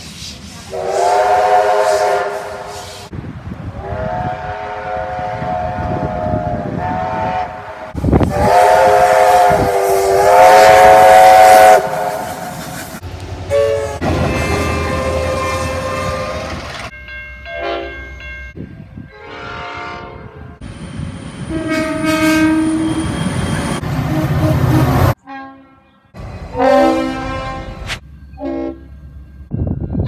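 Train horns sounding in a string of separate clips: three long chords of several notes over the first twelve seconds, then shorter blasts from other locomotives, pitched differently. Railway wagons rumble past under some of the blasts.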